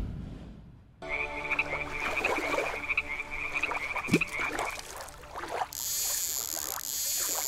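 Frogs croaking under a high warbling trill, starting about a second in. A short rising note comes about four seconds in, and a bright hiss starts about six seconds in.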